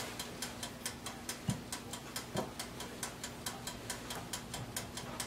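Rapid, even ticking, about five ticks a second, from a toaster oven's wind-up timer while bread toasts, over a faint steady hum. Two soft knocks come partway through as avocado halves are set on the plates.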